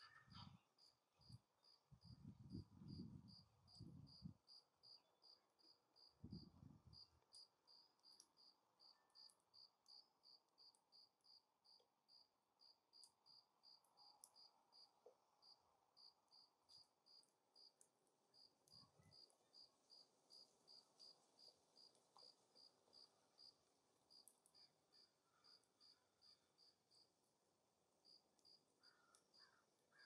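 Faint insect chirping, likely a cricket, with short high chirps repeating at a steady pace of about two a second. A few brief low rumbles come in the first seven seconds.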